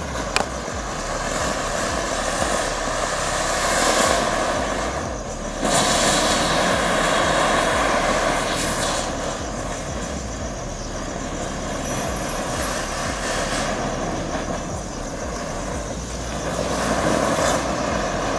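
A combo of seven anar fountain fireworks burning together, giving a continuous rushing hiss of spraying sparks that swells and eases. There is a sharp pop about half a second in, and the hiss jumps louder about six seconds in.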